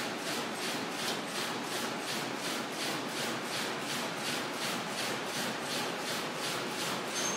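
Computer-controlled automatic warping machine running, yarn drawing off the cones on its creel: a steady mechanical hiss that pulses evenly about three times a second.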